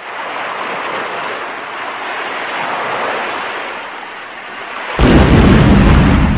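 Cinematic intro sound effects: a long airy whoosh that swells and eases off, then about five seconds in a sudden deep boom that rumbles for about two seconds.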